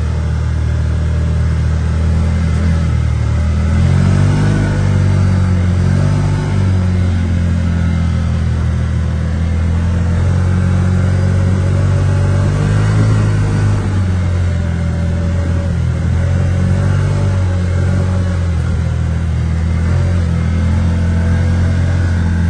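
Side-by-side buggy's engine running steadily while driving along a sand beach, heard from the open cab, with a steady rushing noise over it. The engine pitch shifts briefly a few seconds in and again about halfway.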